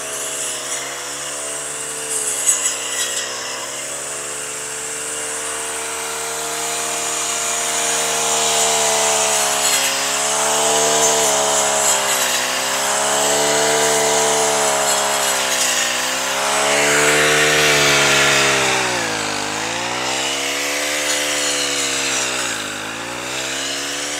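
Petrol brush cutters running while cutting grass. The nearest engine holds a steady note that dips in pitch and recovers several times, with two deeper dips near the end, over the noise of other cutters.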